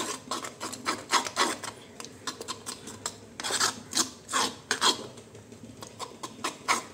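Hand mixing thick bajji batter in an earthenware bowl: repeated scraping, squelching strokes of fingers and batter against the clay, a few strokes a second, loudest about three to five seconds in.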